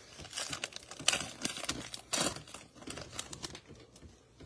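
Panini Prizm basketball card pack's shiny wrapper being torn open and crinkled by hand, in irregular crackling bursts that are loudest about one and two seconds in. The bursts die down to quieter rustling of cards being handled in the last second.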